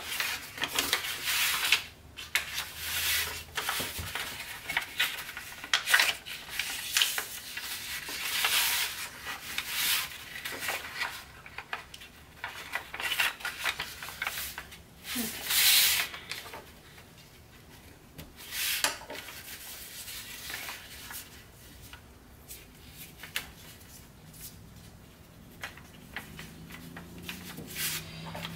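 A sheet of Tant origami paper rustling and crinkling as hands fold, flatten and press creases into a tessellation, in irregular bursts that thin out and grow quieter in the last third.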